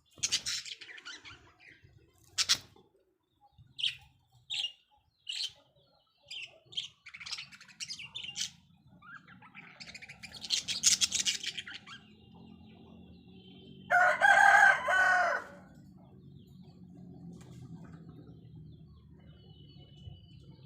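Budgerigars squabbling: short, sharp chirps and squawks in quick runs, a burst of dense chattering, and a loud harsh screech about fourteen seconds in.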